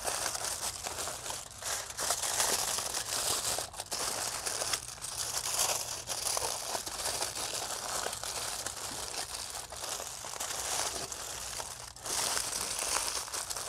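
Aluminium foil crinkling and crumpling as it is folded and pressed by hand tightly around a pork knuckle, a run of irregular rustles with a brief pause near the end.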